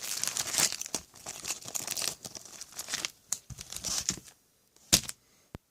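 Crinkling and rustling of trading-card pack wrappers being handled, fading out after about four seconds, then two sharp knocks near the end.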